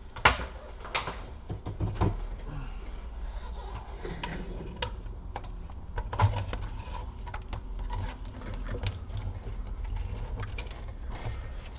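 Scattered clicks and light knocks of hands handling an opened-up laptop and its parts, the sharpest about a quarter second in, over a steady low hum.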